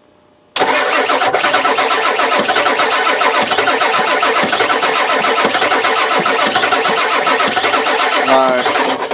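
Starter cranking a 1996 Ford 7.3 Powerstroke V8 diesel in a rhythmic chug for about eight seconds without it running, a no-start. A brief rising whine comes just before the cranking stops.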